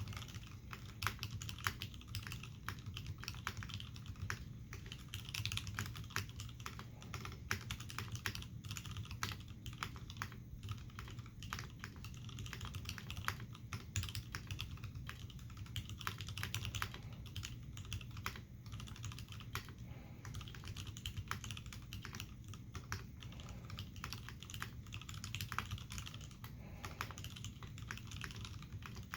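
Continuous typing on an Iron180 mechanical keyboard with lubed and filmed Hirose Cherry MX Clear tactile switches and Cherry dye-sub keycaps, mounted on a forged carbon-fibre plate in a case with a brass bottom. The keystrokes come as an unbroken, irregular run of clicks, several a second.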